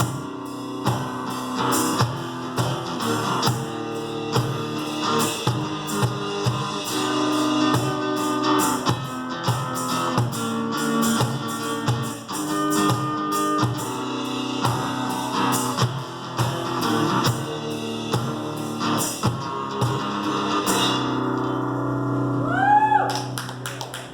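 Live two-piece band playing: strummed guitar over a steady drum beat, the song winding down near the end.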